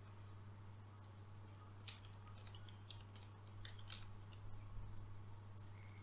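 Faint computer keyboard typing and mouse clicks: a scatter of short, light clicks, thickest in the middle, over a steady low electrical hum.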